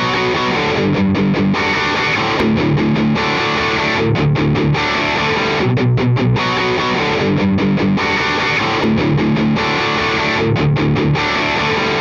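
Electric guitar riff played back on a looper pedal, the same few-second phrase repeating over and over, picked up by a microphone on the amplified guitar.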